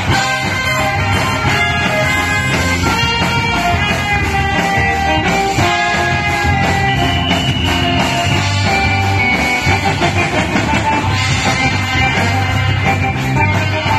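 Band music: a brass horn plays a melody of long held notes over a guitar-like accompaniment and a steady, pulsing bass.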